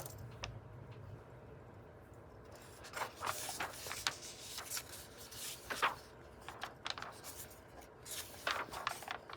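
Paper rustling and soft handling noises as the pages of a book are turned, in a few short rustles about three, six and nine seconds in.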